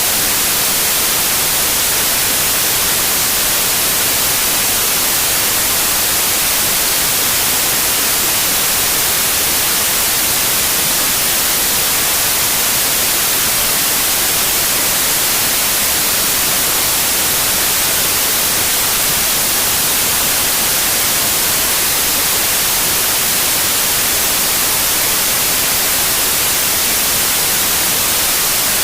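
Steady white noise: an even, unchanging hiss, strongest in the highs.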